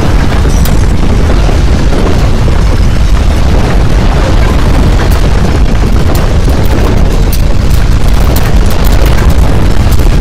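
Loud, continuous deep rumbling of a strong earthquake, with scattered crackles and rattles on top that grow thicker in the second half.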